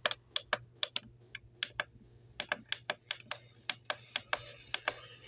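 Computer keyboard keys clicking in quick, irregular strokes, thinning out for about a second partway through.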